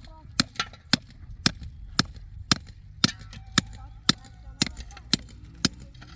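A hammer striking steadily, about two sharp blows a second, with even spacing.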